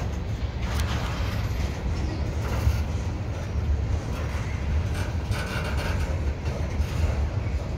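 Covered hopper cars of a slow-rolling freight train passing close by: a steady low rumble of steel wheels on the rails, with occasional short clicks and clanks.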